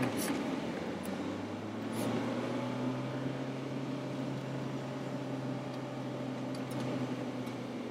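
Motorhome engine and road noise heard from inside the cab while driving: a steady low drone with a faint tick now and then.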